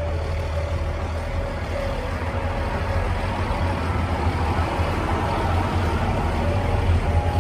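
KiHa 48 diesel railcar engine running: a steady low rumble that grows gradually louder, with a faint steady tone coming in near the end.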